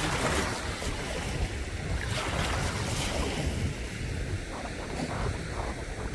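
Wind buffeting the microphone: a steady rushing noise with a heavy low rumble that swells in gusts.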